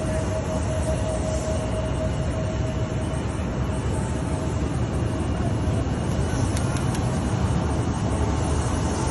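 Steady airport ramp noise from jet aircraft running, with a steady whine that fades out after the first few seconds.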